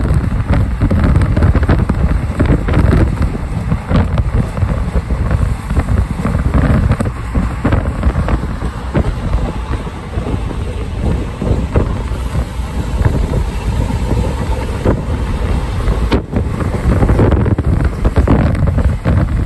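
Wind buffeting the microphone at the open window of a moving passenger train, over the steady rumble of the train running on the track.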